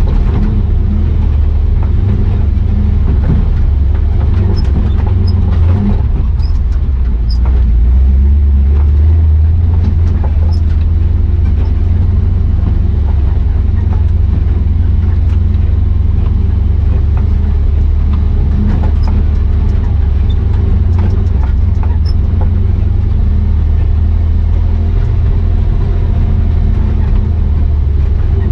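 Chevrolet 6.0 Vortec V8 in a square-body 4x4 pickup running steadily under load, a deep low drone that swells slightly about eight seconds in, with scattered light clicks and ticks.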